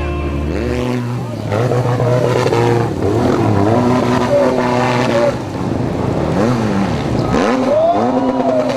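Off-road motorcycle engines revving, pitch rising and falling repeatedly as the throttle is blipped and opened.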